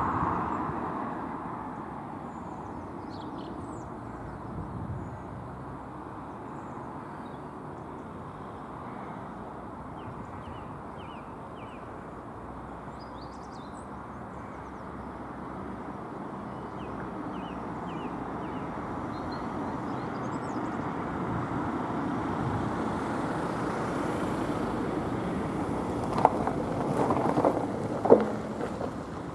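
Steady outdoor rumble, like distant traffic, that fades after the start and swells again in the second half. Faint high chirps come and go, and there are two sharp knocks near the end.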